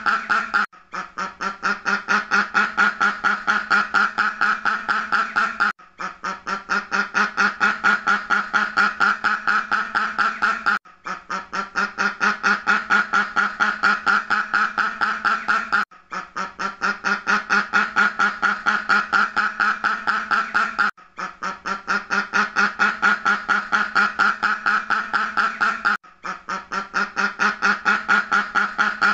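Duck quacking in a fast, unbroken run of quacks. The same stretch of about five seconds repeats as a loop, with a short break between repeats; each repeat starts softer and builds up.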